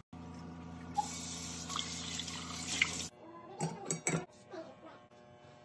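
Tap water running into a stainless steel sink while a new carbon steel wok is washed. The water cuts off suddenly about three seconds in, followed by a few light clinks and knocks of metal being handled.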